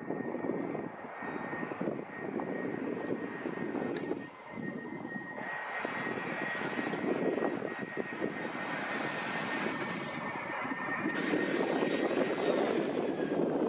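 Airbus A319 jet airliner's engines on final approach to land: a continuous rushing noise with a thin steady high whine, growing a little louder as the aircraft comes in over the runway.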